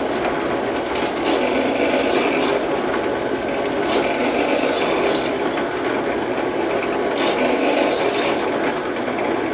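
Benchtop drill press running, its bit cutting holes through sheet-metal pieces: a steady cutting noise with several brief, sharper bursts as the bit bites into the metal.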